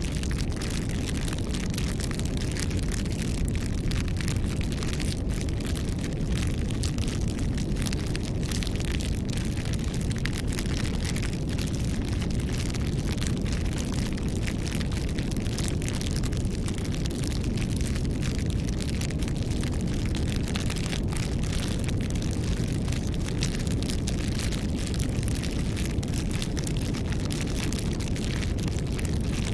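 Campfire crackling: many quick, irregular snaps and pops over a steady low rumble of the flames.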